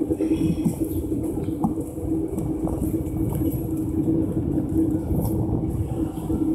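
City street ambience: a steady low hum over a continuous low rumble, with a few faint high-pitched tones near the start.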